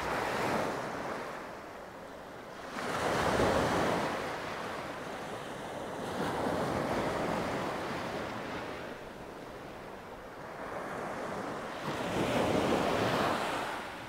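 Sea surf breaking and washing up the shore, swelling and fading in about four waves.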